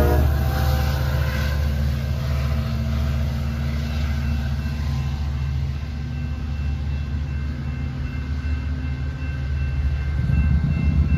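EMD F59PHI diesel-electric locomotive's 12-cylinder EMD 710 engine running as it works a Coaster commuter train: a steady low rumble that swells slightly near the end.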